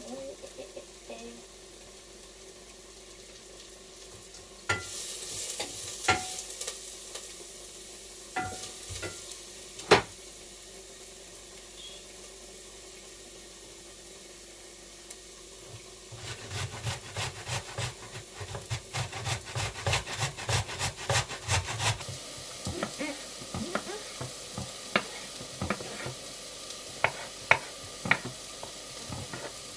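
Scattered clinks and taps of a utensil against a dish, then about six seconds of rapid, even stirring or whisking, several strokes a second, over a faint steady hiss.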